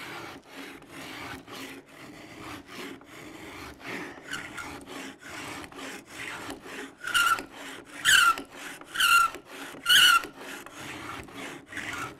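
A small hand-held shaping blade slicing wood from the back of a guitar neck in quick repeated push strokes, about three a second, peeling off curls of wood. About two-thirds of the way through come four louder strokes, each with a brief high squeak.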